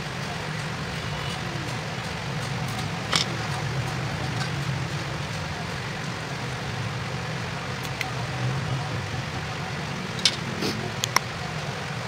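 Short plastic clicks and taps from a wall switch-socket's housing being pried apart and handled: one about three seconds in and several close together near the end, over a steady low hum.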